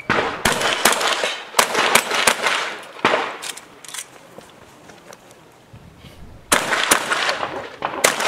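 Shotgun fired in quick succession, a sharp shot about every half second with a short echo after each, through the first four seconds. After a quieter stretch of about two and a half seconds, another fast string of shots follows near the end.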